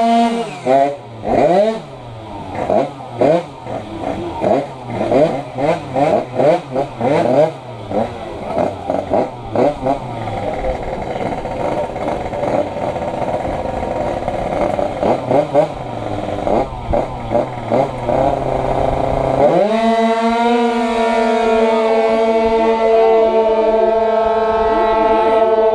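Two-stroke sprint scooter engine revved in quick repeated throttle blips, the pitch sweeping up and down for about ten seconds. It then runs lower and unevenly, and about two-thirds of the way through rises sharply to a high, steady pitch that is held.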